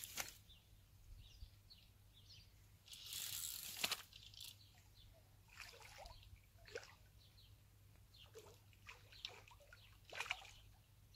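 Faint, scattered splashes of a hooked carp thrashing and swirling at the surface of the water, with a longer splash about three seconds in.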